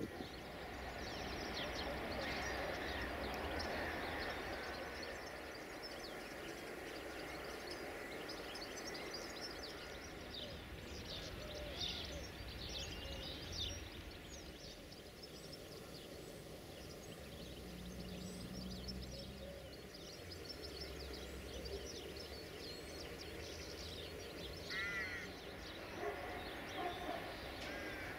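Outdoor trackside ambience of wild birds singing and calling, many short high chirps throughout, with a brief repeated call about three quarters of the way through, over a faint low rumble; no train passing.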